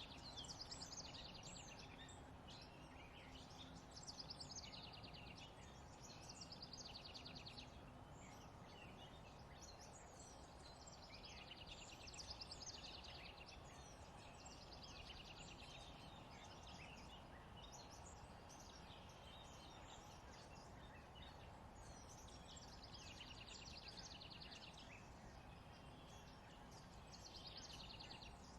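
Faint songbird singing: a short, rapid trilled phrase repeated every few seconds over a low, steady outdoor background hum.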